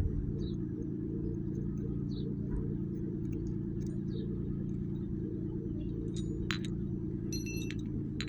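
Engine idling steadily with a low, even hum, with scattered faint clicks and light metallic taps of work on the exhaust fitting and a short ringing tap about seven seconds in.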